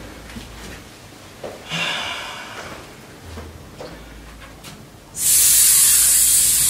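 A quiet stretch with faint murmurs and a few soft knocks, then about five seconds in a loud, steady, high hiss starts abruptly and holds.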